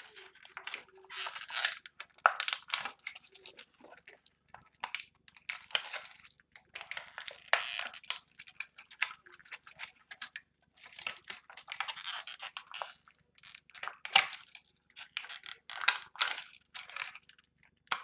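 Hard plastic scraping, scratching and clicking in irregular bursts as a stuck Beyblade driver is pried and pushed at to get it out.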